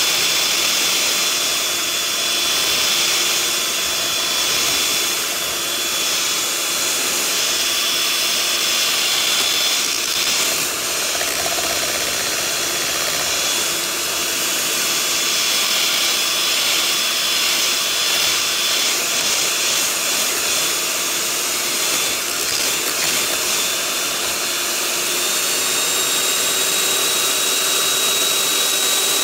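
Electric hand mixer running steadily, its two beaters whirring through thick cheese-tart batter in a bowl. The motor's pitch steps slightly higher near the end.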